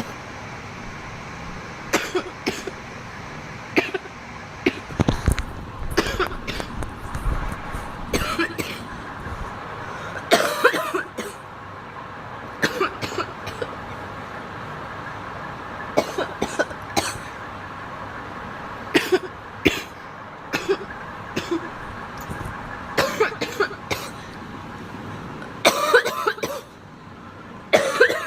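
A young woman coughing over and over in fits of several coughs every few seconds, from inhaling cannabis smoke.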